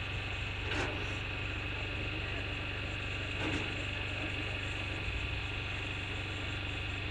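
Engine running steadily with a low hum and a thin high whine, broken by two short noisy bursts about a second in and about three and a half seconds in.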